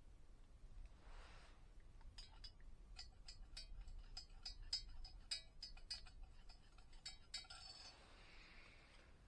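A quick, irregular series of light clinks with a slight ring, about four a second, starting about two seconds in and stopping near the end, with soft rustling before and after.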